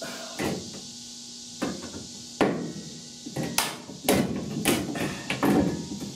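Hammer knocks on sheet metal as a roof patch panel is tapped into place, each strike with a short metallic ring. There are a few spaced-out blows at first, then a quicker run of about six from the middle on.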